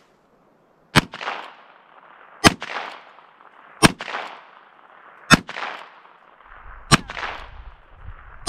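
Heritage Rough Rider single-action .22 Long Rifle revolver firing six CCI Blazer rounds, one shot about every one and a half seconds, each crack trailing off in an echo. All six rounds go off with no misfire.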